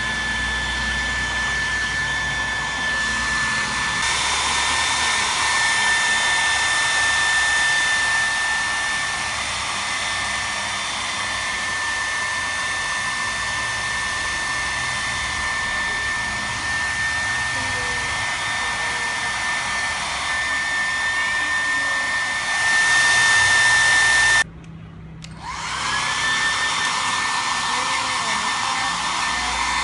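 Handheld hair dryer blowing steadily with a high motor whine. About 25 seconds in it cuts out for about a second, then whines back up to speed.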